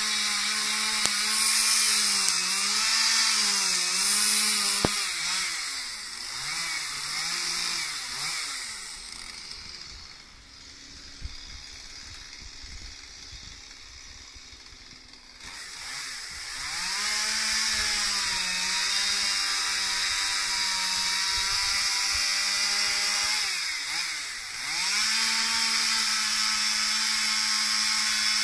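Stihl MS 181 two-stroke chainsaw with a carving bar cutting into oak, its engine pitch wavering under load and then falling away. After several seconds of a much quieter stretch, the saw revs back up and keeps cutting at a steady high speed, with a brief dip in revs near the end.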